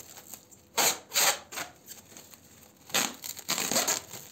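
Plastic cling film being pulled off its roll and wrapped around a bun, in rasping, crackling pulls: a pair about a second in, then a longer run of pulls near the end.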